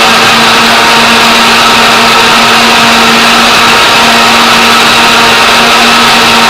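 Electric kitchen blender running at one steady speed: a constant motor whine over a loud whirring rush.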